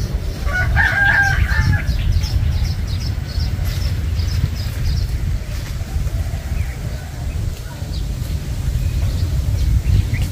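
A rooster crows once, about half a second in, for just over a second. Under it, a steady low rumble of wind on the microphone.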